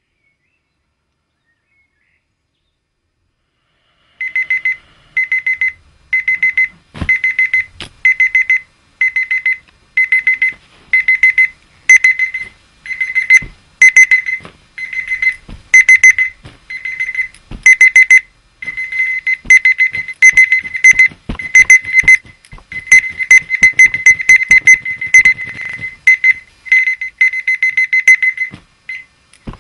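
Dumbbell alarm clock's electronic alarm beeping: bursts of rapid high-pitched beeps, about one burst a second, starting about four seconds in, with scattered sharp knocks among them.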